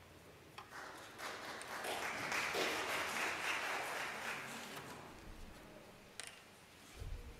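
Congregation applauding after a string piece ends, the clapping swelling and then fading out over about four seconds, with a single sharp click a little later.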